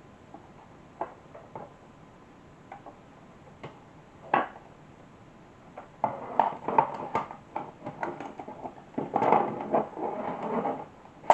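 Atari 410 program recorder's tape mechanism and circuit board being handled and worked into its plastic case: a few separate clicks at first, then from about six seconds in a dense clatter of plastic clicks, knocks and rubbing.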